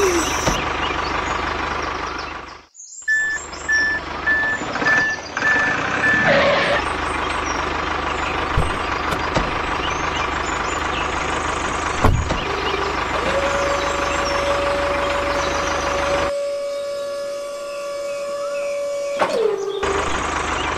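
Dubbed truck sound effects: an engine running steadily, a run of reversing beeps a few seconds in, and a steady hydraulic whine for about six seconds near the end as the trailer tips.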